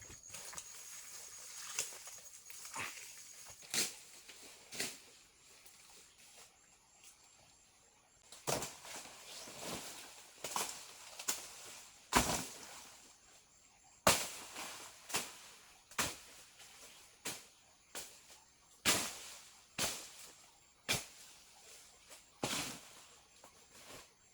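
A series of sharp knocks or strikes, irregularly spaced at roughly one a second, sparse in the first half and more frequent in the second. A steady high insect trill is heard at the start.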